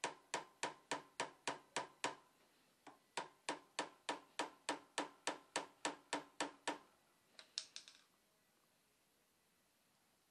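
A plastic hammer tapping steadily on a flywheel puller fitted to a Honda Super Cub's flywheel, about three sharp blows a second with a short metallic ring, to shock the flywheel loose. The tapping breaks off briefly about two seconds in, resumes, and ends with a few lighter taps about seven seconds in.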